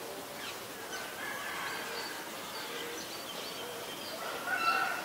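Several birds calling at once: short high chirps overlapping with longer, lower held notes, with a louder call near the end.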